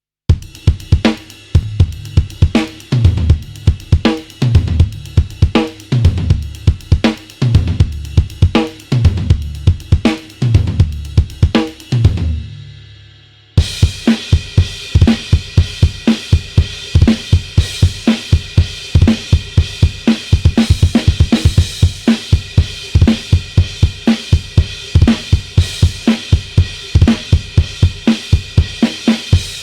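Sampled acoustic drum kit from the EZdrummer 3 'Into the Dark' library playing rock grooves. The first half is a slower beat with heavy, booming low drum hits. About halfway in, it cuts to a busier pattern with kick and snare under constant hi-hat and cymbal wash.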